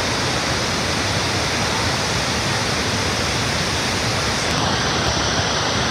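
Niagara's Horseshoe Falls: a steady, even rush of falling water.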